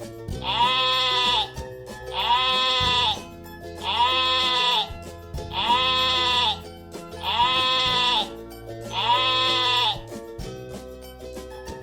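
Sheep bleating six times, about every second and a half to two seconds, each call dropping in pitch at its end, over steady background music.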